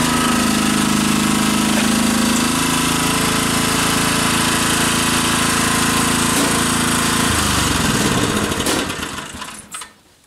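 Ride-on 7¼-inch gauge miniature train running with a steady mechanical drone. About seven seconds in the note drops in pitch, and it fades away over the next two seconds as the train stops.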